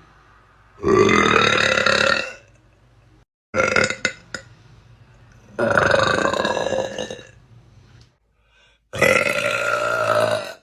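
A person letting out thick, loud burps: four in a row, each lasting a second or more, the second shorter and choppy.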